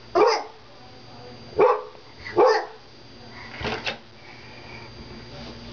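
Dog barking through a pet door flap: single sharp barks spaced about a second apart, ending in a quick double bark near the middle.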